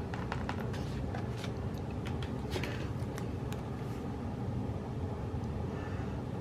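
Small clicks and crinkles of a sticker sheet and planner pages being handled as stickers are peeled and pressed down, mostly in the first three or four seconds, over a steady low background hum.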